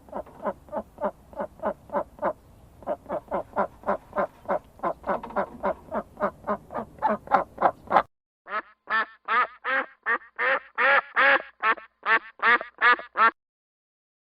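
Ducks quacking in quick repeated calls, about three a second. Near the middle the sound cuts to a second, louder run of quacks, which stops about a second before the end.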